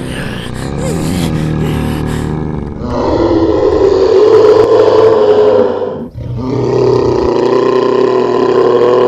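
A long, loud lion-like roar from an animated lion-headed character, in two drawn-out stretches with a short break about six seconds in.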